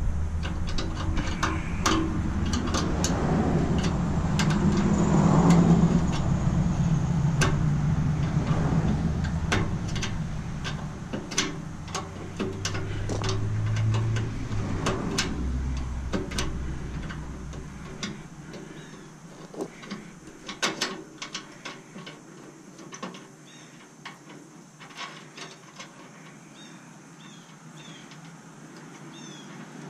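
Scattered clicks and clinks of hand tools working metal fittings on a stainless steel steamer as its gauges are taken off, over a low rumble that fades out a bit past halfway.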